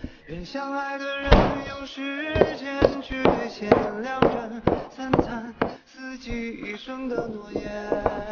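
Background song with singing over a steady beat of sharp knocks.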